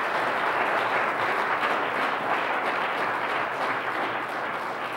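Congregation applauding: a steady round of clapping that eases off a little near the end.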